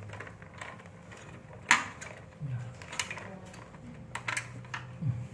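Light clicks and knocks of hands handling parts and wires while wiring an electrical consumer unit, with one sharper click a little under two seconds in.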